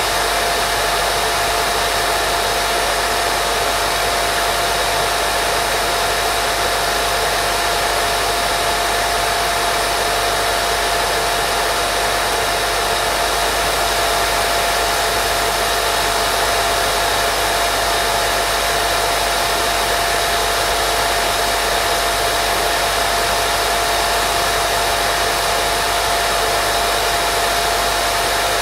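Steady white noise made for lulling a baby to sleep: a constant, unchanging hiss with a faint steady tone in the middle of it.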